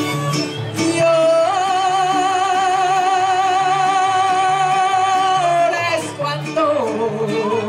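Mariachi music: a woman sings one long held high note with vibrato from about a second in until nearly six seconds, then slides down to a lower phrase. A rhythmic bass line and strummed guitars run underneath.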